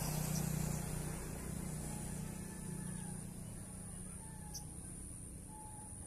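A motor vehicle passing by, its low engine hum fading away over the first few seconds, over a steady high-pitched insect drone.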